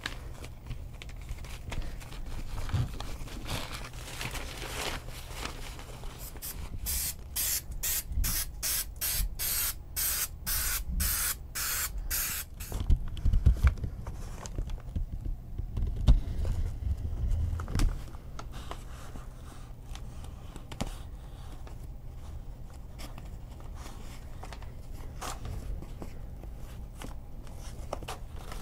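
Aerosol spray can hissing in a run of short, evenly spaced spurts, about two to three a second, for several seconds. Dull thumps and rustling follow as fabric and foam are pressed and handled.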